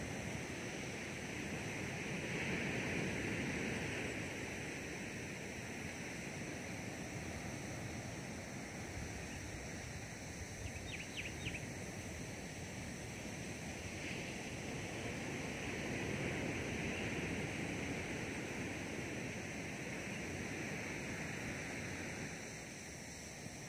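Outdoor natural ambience: a steady rushing noise that swells twice, slowly rising and falling, over faint steady high-pitched tones, with a brief few chirps about halfway through.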